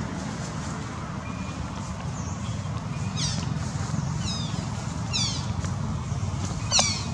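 Macaque monkey cries: a few short, high calls that fall in pitch, the loudest near the end, over a steady low background rumble.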